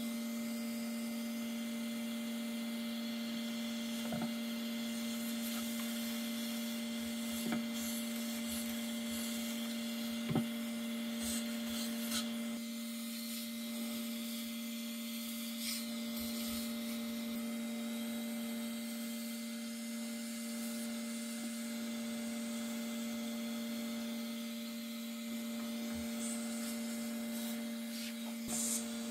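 A steady electrical hum with a faint rubbing sound and a few light clicks, as a small brush scrubs packed lint and dust from around a sewing machine's bobbin hook and feed dogs.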